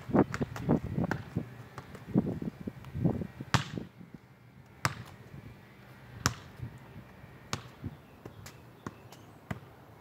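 Soccer ball touches and footsteps on asphalt: a quick run of dull thuds during the first few seconds, then single sharp taps about every second and a half.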